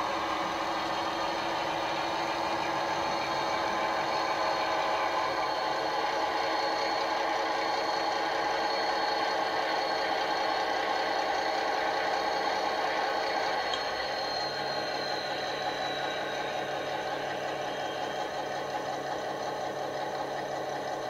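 A model Class 22 diesel-hydraulic locomotive's DCC sound decoder plays a diesel engine running through the model's small speaker, with a high turbo whistle. About two-thirds of the way through the whistle falls in pitch and the engine settles down to idle.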